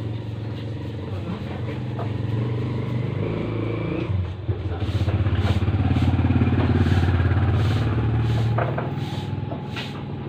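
A motor vehicle engine, most like a motorcycle's, running steadily and growing louder about halfway through before easing off. Over it come the short scratchy strokes of a broom sweeping concrete.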